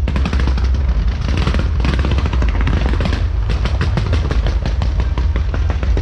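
A long string of firecrackers going off in a rapid, unbroken crackle of sharp bangs, many a second, over a low rumble.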